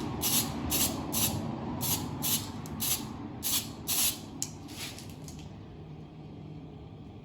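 Aerosol spray can of etch primer being sprayed in about a dozen short hissing bursts that stop a little after five seconds in.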